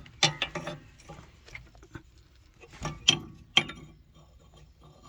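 Small metal clicks and clinks of a brake push rod being handled and fitted to the brake pedal: a quick cluster of clicks near the start, then three sharper clicks around the middle.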